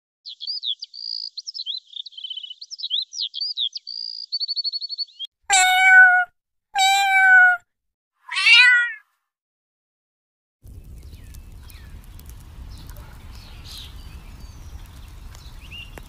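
A small songbird, a marsh tit, sings quick varied whistled phrases ending in a short fast trill. Then a domestic cat meows three times, the third meow higher and falling. After a short silence comes a steady low rumble of outdoor background noise with faint high chirps.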